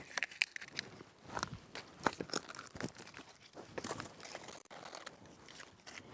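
Dry twigs and sticks being gathered and broken for fire kindling: irregular snapping, crackling and crunching, with footsteps on gravel.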